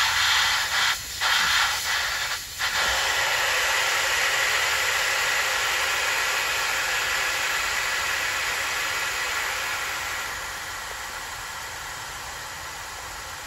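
Gas hissing out of a mini-split head unit's flare fitting as its cap nut is loosened with a wrench, typical of the factory nitrogen holding charge escaping. It comes as a few short hisses, then a steady hiss that slowly weakens over the last few seconds.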